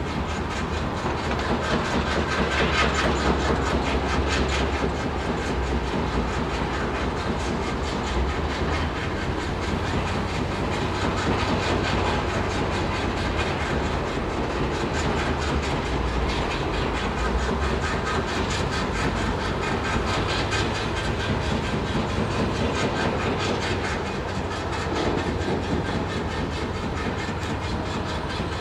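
Industrial machinery running steadily in city ambience: a continuous fast mechanical clatter over a low, steady hum.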